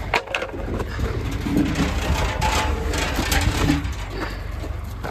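An engine idling steadily with a low hum, with a few sharp knocks just after the start.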